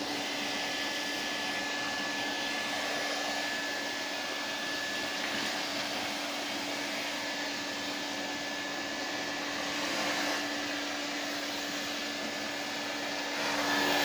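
Numatic Henry cylinder vacuum cleaner running, a steady motor hum with a thin high whine, as its wand sucks up small paper pieces from a carpet. It gets a little louder near the end.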